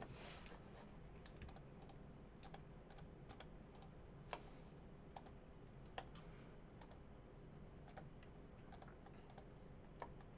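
Faint, irregular clicks of keys being pressed on a computer keyboard, one or two a second, over near-silent room tone.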